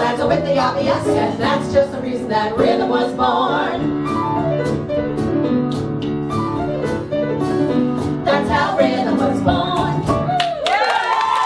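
Women's voices singing a swing number with piano accompaniment. Near the end a voice slides up into a long held high note with vibrato.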